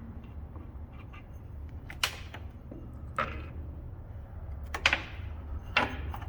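About five sharp knocks and clanks of tools and metal parts being handled, two of them close together near the middle, over a steady low hum.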